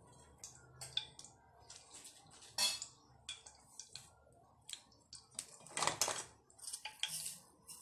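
Oil heating in a non-stick kadai, giving irregular small sharp crackles and pops of sputtering, with a louder cluster about six seconds in.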